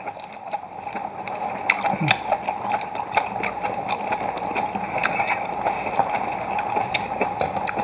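Close-up wet eating sounds of octopus being slurped and chewed: many short smacks and mouth clicks over a steady background hum.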